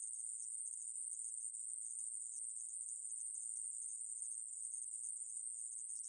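Aemaeburi, a conehead katydid, singing: a continuous high-pitched buzz with no breaks.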